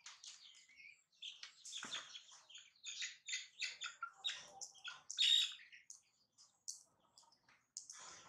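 Baby monkeys giving quick, high-pitched chirps and squeaks, a dense run of them through the middle, the loudest about five seconds in.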